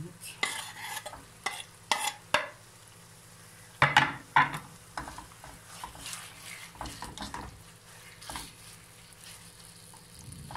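Raw chicken breast cubes going into a hot oiled nonstick frying pan and being stirred with a plastic slotted spatula: a run of scrapes and knocks against the pan, loudest about four seconds in, over a light sizzle as the chicken starts to sear.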